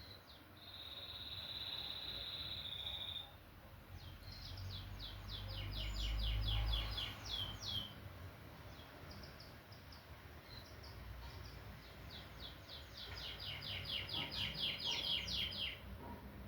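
Canary singing: a high note held steady for about three seconds, then quick runs of rapidly repeated notes, a pause, and another fast run near the end. A low rumble sits under the middle of the song.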